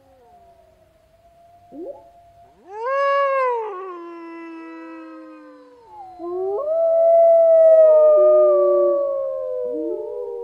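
Grey wolves howling: one howl rises steeply about two and a half seconds in and falls away a second later, then a longer, louder howl swells about six seconds in and slowly sinks, with other howls at different pitches overlapping it.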